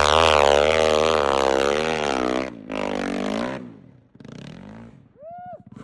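Snow bike engine revving hard through deep snow, its pitch rising and falling with the throttle, cutting off about two and a half seconds in, then a short burst of throttle before it fades away. Near the end, a short high whooping call.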